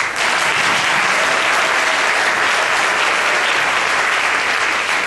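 Theatre audience applauding, a steady, dense clapping of many hands.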